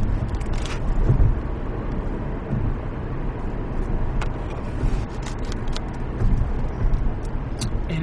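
Steady low rumble and hiss of background noise inside a car, with a few faint short clicks in the second half.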